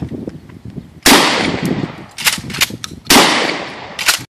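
Pump-action shotgun fired twice, about two seconds apart, each blast trailing off over most of a second, with shorter sharp clacks in between.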